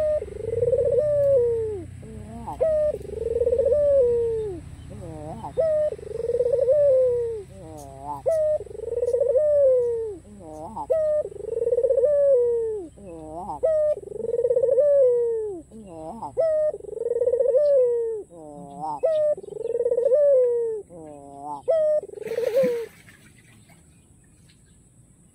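White Barbary dove (puter) cooing over and over, about ten coos roughly two seconds apart. Each coo is a quick catch of short rising notes and then a long, arching note that falls away. The cooing stops near the end.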